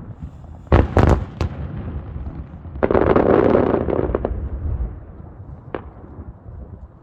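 Aerial fireworks shells bursting: three sharp bangs about a second in, then a dense crackling burst lasting about two seconds, and a single pop a little later.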